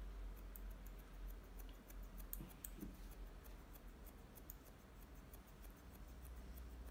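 Hairdressing scissors snipping hair in a run of quick, faint clicks, thicker in the first half, as the fringe is trimmed.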